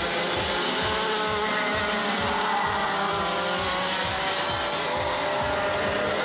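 Racing go-kart two-stroke engines running at high revs, several at once, their pitches sweeping up and down as they rev and lift off through the corners.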